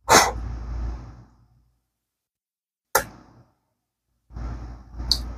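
A person's breath close to the microphone: a heavy exhale at the start that fades over about a second, a single click about three seconds in, and another breath near the end.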